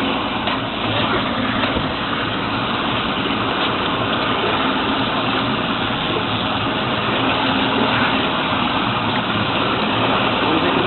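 Boat motor running steadily, a constant engine drone with water and wind noise mixed in.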